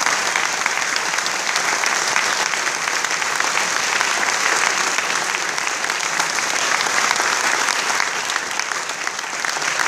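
Audience applause, many hands clapping steadily.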